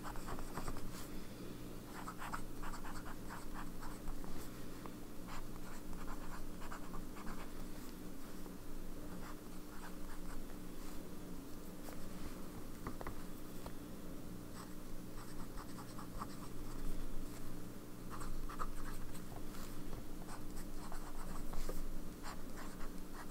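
Steel zoom nib of a Sailor 1911S fountain pen scratching across paper as words are written, in short strokes with brief pauses, over a low steady hum.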